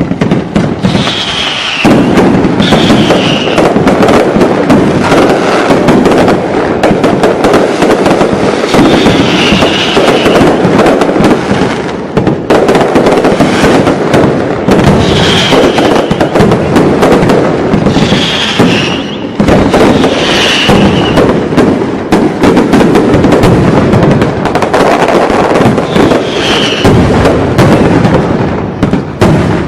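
Fireworks display going off in a loud, dense barrage of bangs and crackling, with short shrill high-pitched sounds recurring every few seconds.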